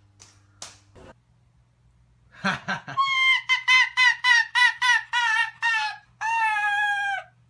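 Arctic fox calling: a rapid series of short, high cackling calls, about four a second, starting a couple of seconds in, then one longer call that falls in pitch at its end.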